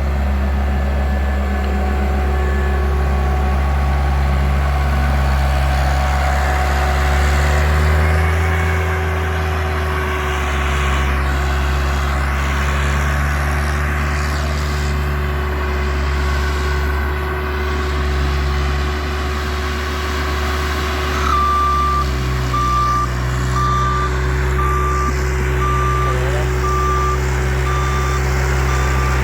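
A Bobcat loader's engine runs steadily as the machine works, its note shifting a couple of times. About two-thirds of the way in, its backup alarm starts, beeping a little more than once a second as it reverses.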